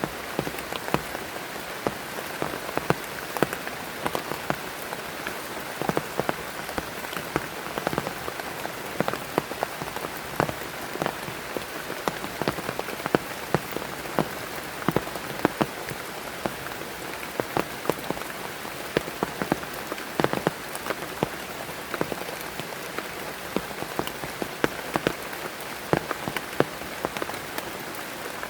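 Heavy rain falling steadily, with many loud separate drops striking a surface close by as sharp taps over the even hiss.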